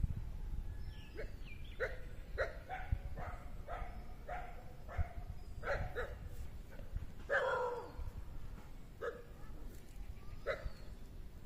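A dog barking repeatedly, about two short barks a second, then one longer bark about seven seconds in and two more spaced out near the end, over a steady low rumble.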